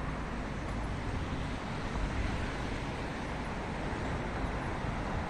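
Steady road traffic noise: cars driving past on a multi-lane city road, an even rush without distinct events.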